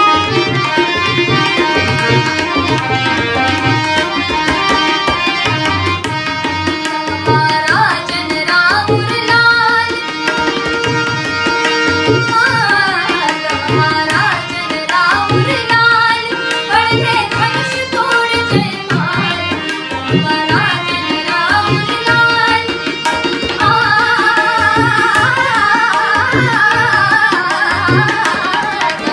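A woman singing an Indian song to harmonium and tabla: held harmonium notes under a steady tabla rhythm, with the voice gliding between notes.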